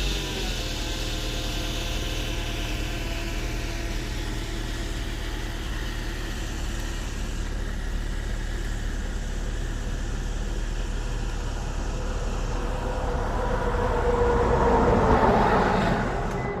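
Mitsubishi Veryca light truck engine running, settling from a higher speed to a steady idle, with a louder swell near the end. It carries an abnormal noise that the owner cannot identify.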